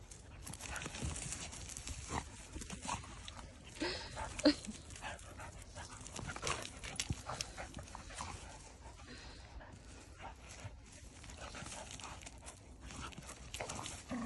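Two dogs play-wrestling in dry bracken and leaf litter: scuffling, rustling and brief dog noises. The loudest moment is a short sharp sound about four and a half seconds in.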